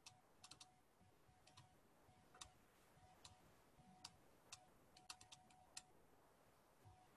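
Near silence broken by about a dozen faint, irregular clicks of a stylus tapping on a tablet while handwriting.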